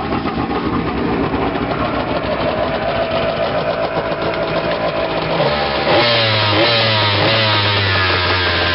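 Yamaha Wave Venture 1100's two-stroke triple running on the trailer, out of the water, at a steady idle. From about six seconds in it is revved in several quick throttle blips, sounding crisp like a chainsaw.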